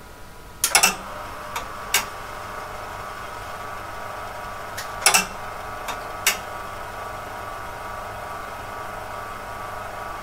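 RX02 8-inch floppy drive clunking and clicking as it tries to read the disk: a loud cluster of clunks about a second in and another about five seconds in, each followed by single clicks, over a steady hum that starts with the first clunks.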